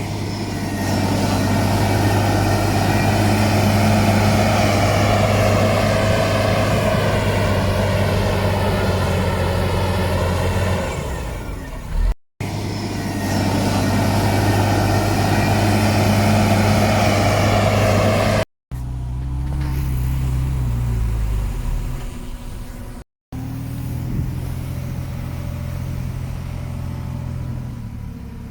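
Heavy diesel engines of earthmoving machines running hard under load, the engine note shifting in pitch as they work. The sound drops out abruptly three times where separate clips are cut together, and it is quieter in the last two sections.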